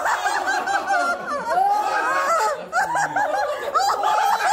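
People laughing and giggling, a quick run of chuckles that carries on without a break.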